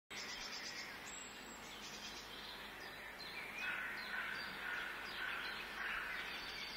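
Quiet countryside ambience: many birds chirping over a steady background hiss, the chirping busier from about halfway.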